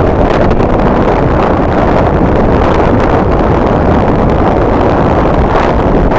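Strong wind buffeting the microphone: a loud, steady rumble with no distinct events.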